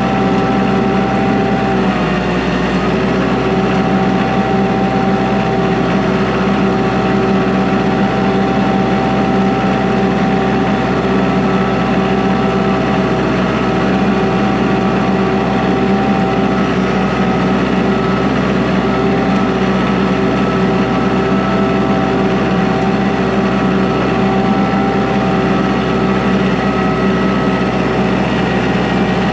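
Kubota L3940 tractor's diesel engine running steadily at a constant speed, with a brief small dip in pitch between two and three seconds in.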